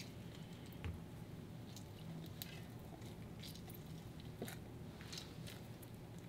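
Lemon halves squeezed by hand over a jug of juice: faint wet squishes and small drips, a handful of short sharp ones scattered through, over a low steady hum.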